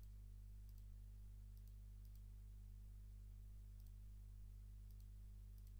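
Faint computer mouse clicks, several at irregular intervals, over a steady low hum.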